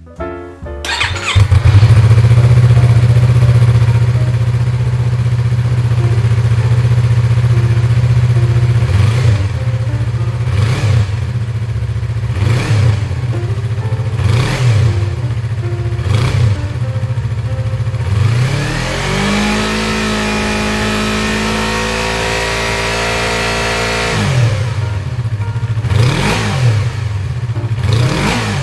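Yamaha YZF-R25 / MT-25 249 cc parallel-twin engine breathing through an SP Tadao POWERBOX megaphone silencer: it starts about a second in and idles, is blipped about five times, held at higher revs for about six seconds, dropped back, and blipped three more times near the end.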